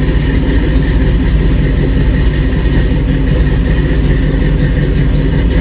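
Freshly restored 1966 Ford Bronco's engine running steadily at idle.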